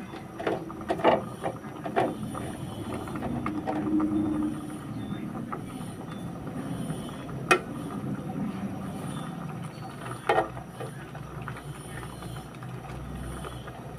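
A pot of water with jute mallow leaves heating on a stove, a steady low hiss of simmering, with a few knocks of a utensil against the pot in the first couple of seconds, a sharp click about seven and a half seconds in and another knock around ten seconds in.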